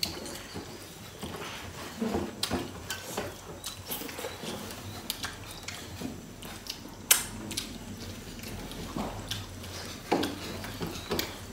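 Eating by hand from metal plates: fingers mix and scrape rice and dal against the plates, with chewing and mouth smacks, heard as an irregular run of short clicks and taps. One sharper click comes a little past halfway.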